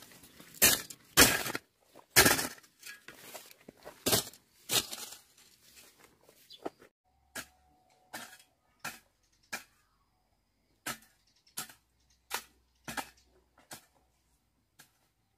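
A series of sharp knocks, loud and about one every half second to a second for the first five seconds, then fainter and more spread out.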